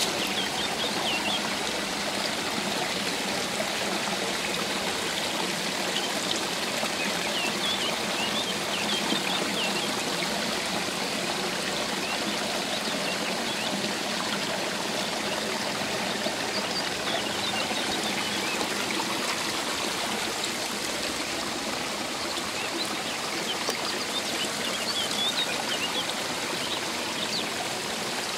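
Shallow rocky stream running steadily over stones, a continuous rushing and trickling of water, with short high bird chirps a few times.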